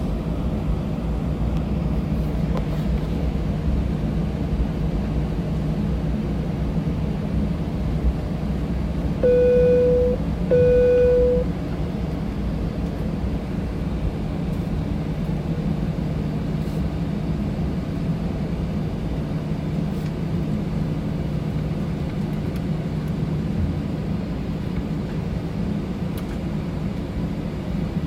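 Steady low hum of an airliner cabin. About ten seconds in, two identical electronic beeps of about a second each sound at the same pitch.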